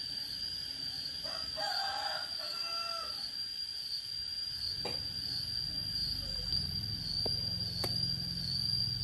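A short animal call with a clear pitch, lasting about two seconds from about a second in, over a steady high-pitched whine. A low hum comes in past the middle, with a couple of sharp clicks.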